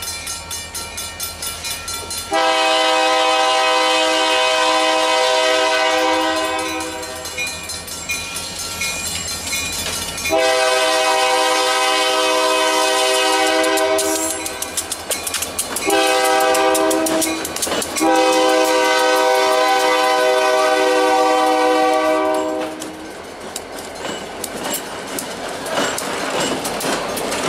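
Ann Arbor Railroad diesel locomotive's horn blowing the grade-crossing signal, long, long, short, long, as the train approaches. Then the locomotives and grain hoppers roll past close by, the wheels clacking over the rails.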